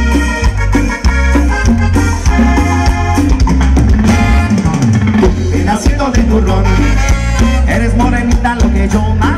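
Live cumbia band playing: a strong, rhythmic bass line and drums with Latin percussion (congas and timbales), and melodic instrument lines over the top.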